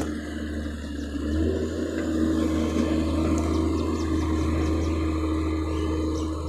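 Engine of a heavy machine running steadily: a low hum with a steady whine above it that rises slightly about a second in.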